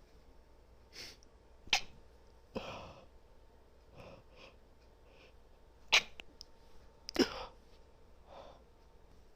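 A woman's stifled sneezes: four sharp, clipped bursts, two close together near the start and two more past the middle, with quieter breaths in between as she tries to hold them back.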